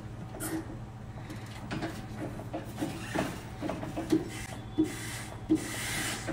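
Raymond electric stand-up reach truck running, a steady low hum with scattered light clicks and knocks.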